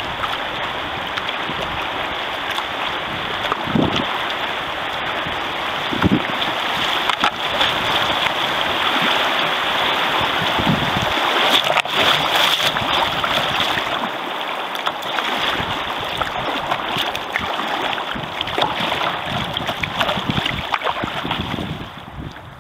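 Rushing, splashing water of a shallow river rapid slapping against a kayak's hull, with wind buffeting the microphone and a few dull knocks. The rushing eases near the end as the kayak reaches calmer water.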